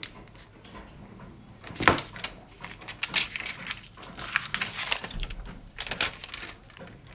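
Handling noises while unboxing a smartphone and its accessories: scattered clicks and the rustle of packaging, with one sharp knock about two seconds in.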